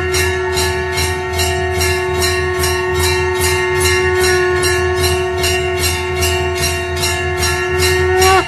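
Temple bells rung rapidly and without pause, about three strikes a second, over a long steady blown note from a conch shell whose pitch sags as the breath runs out near the end.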